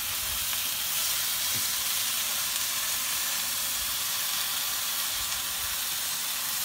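Hot oil sizzling steadily as french fries deep-fry in a pot of oil, with beef frying in a skillet beside it.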